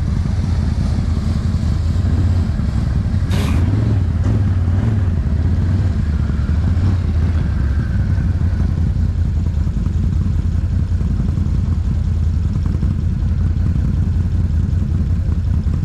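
Can-Am Outlander 1000 ATV's V-twin engine running steadily, heard close up from the machine itself, with a single sharp knock about three seconds in.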